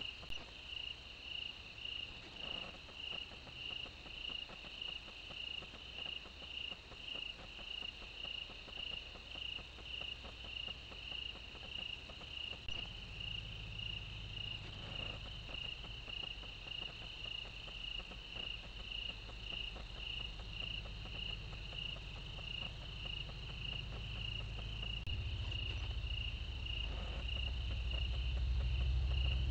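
Night insects, crickets, chirping in a steady even rhythm of about two chirps a second. A low rumble comes in about halfway through and grows louder near the end.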